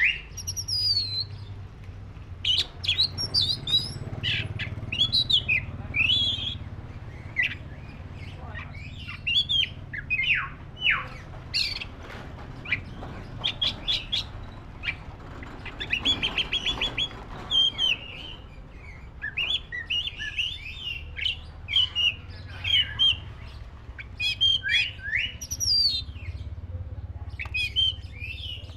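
Oriental magpie-robin of the black-breasted form (kacer dada hitam) singing a varied song of clear whistles, sweeping notes and chirps, with a quick run of rapid repeated notes about halfway through.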